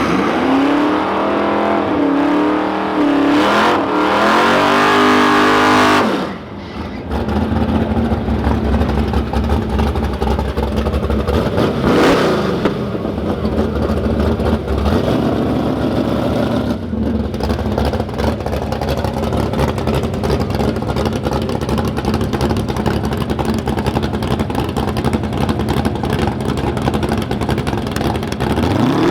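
Drag racing car engines revving up and down, then a long loud steady rumble of engines running hard.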